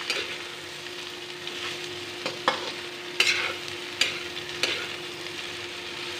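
Sliced potatoes, parwal and onion sizzling in hot mustard oil in a kadhai while a metal spatula stirs them. The spatula scrapes and clicks sharply against the pan several times, mostly in the middle of the stretch. A faint steady hum runs underneath.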